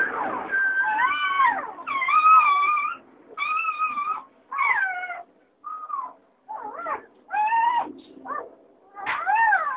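Doberman puppies whining and yelping: a string of about a dozen short, high-pitched cries, each rising and falling in pitch.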